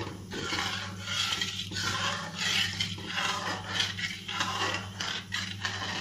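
A utensil, seemingly a whisk, stirring and scraping around a pan of white sauce in repeated strokes, roughly one or two a second, as milk is worked into roasted flour, with a steady low hum underneath.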